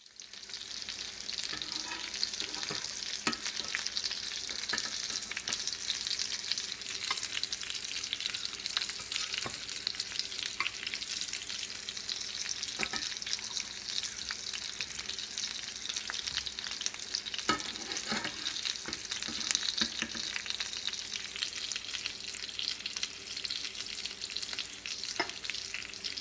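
Chicken kababs frying in shallow oil in a grill pan: a steady sizzle and crackle, with a few sharp clicks now and then.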